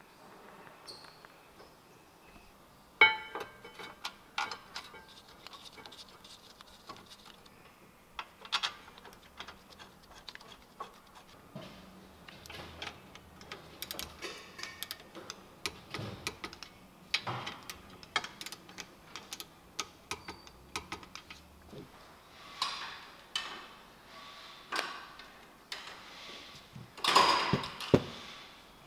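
Hand-tool work on a car's rear brake: scattered metal clicks and clinks of bolts, wrench and caliper bracket, with a denser run of quick clicks in the middle. Near the end the brake pads clatter loudly as they are handled.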